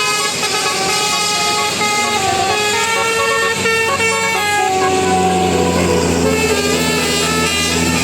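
Indonesian bus telolet horn, a set of musical air horns, playing a melody of quick stepping notes. About five seconds in, a low steady tone joins underneath.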